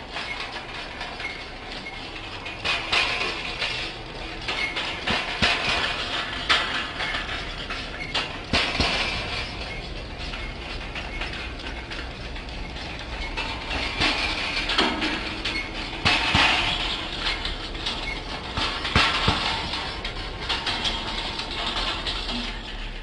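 Metal wheeled kinetic sound machine rolling and tipping over wet paving slabs on its cable, its frame clattering and scraping on the stone in an irregular rattle with sharp knocks now and then.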